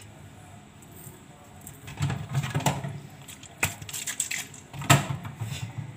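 Several sharp knocks and clatters of things being handled, with rustling between them. They start about two seconds in, and the loudest knock comes near the end.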